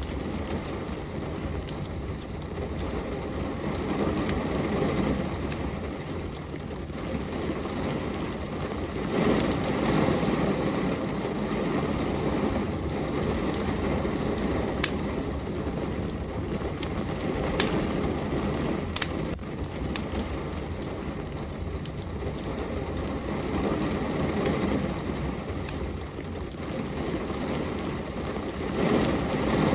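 Steady rain with a low, rushing wash that swells and fades, with a wood fire in a fireplace crackling and giving a few sharp pops now and then.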